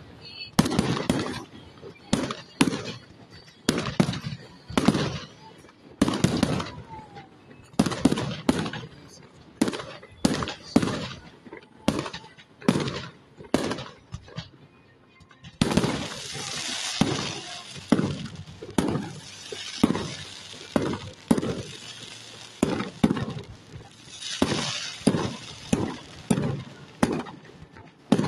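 Fireworks display: aerial shells bursting in a rapid string of bangs, one or two a second. There is a short lull about halfway through, then a long stretch of steady hissing under the continuing bangs.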